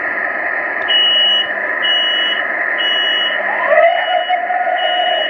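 Metro-North train's door-closing warning beeps: five high-pitched beeps about one a second, heard inside the car over its steady running noise. Near the end a lower tone rises and then holds steady.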